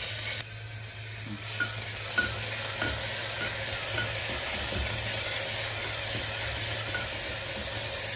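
Chopped onion sizzling in hot mustard oil in a metal pressure cooker pot as a spatula stirs it, with light clicks of the spatula against the pot every second or so.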